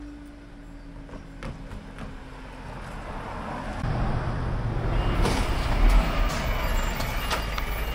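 Road traffic at a level crossing. About halfway in a lorry's engine rumbles close by, and a high steady warning tone from the crossing alarm starts as the amber light comes on.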